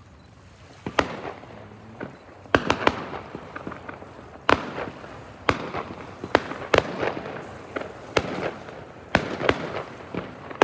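Fireworks display: about a dozen sharp bangs of shells bursting, irregularly spaced and sometimes in quick pairs, with crackling between them, the first about a second in.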